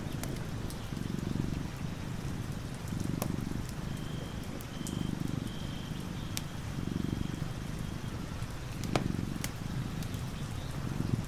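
Tabby cat purring in slow, even swells, about one every two seconds, with scattered ticks of raindrops.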